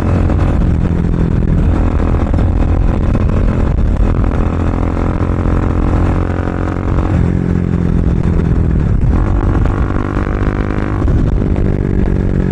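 Bajaj Dominar 400's single-cylinder engine running loud through an aftermarket Akrapovic full-system exhaust with a dB killer fitted. The exhaust note changes every few seconds, shifting about 4, 7 and 11 seconds in.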